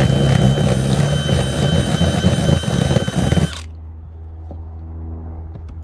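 DeWalt cordless drill running under load, boring into the boat deck to widen the hole for a flush-mount rod holder: a steady high whine over rough grinding. It stops about three and a half seconds in, leaving a low steady hum.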